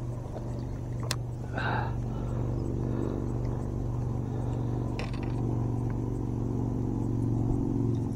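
A boat motor running steadily with a low hum. About a second and a half in comes a short rush of noise, and there are a couple of light clicks.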